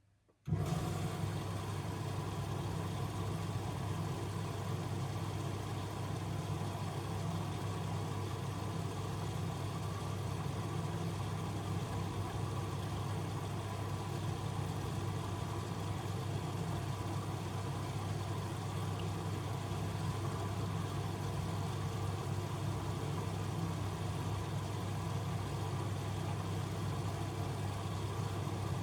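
Miele W1 front-loading washing machine running, a steady hum with an even hiss that starts abruptly about half a second in and holds unchanged.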